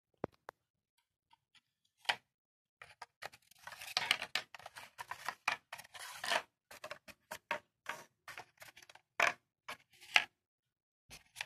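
Small paper model buses being pushed and set down on a wooden tabletop: an irregular run of light taps and clicks, with short scraping slides in the middle.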